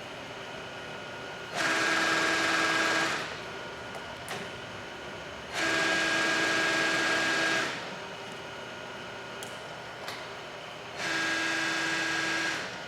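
Fortworth CS-G450C milling machine's geared table feed running under power in three separate runs of about one and a half to two seconds each. Each run is a steady geared whine that starts and stops cleanly. A quieter machine hum carries on between the runs.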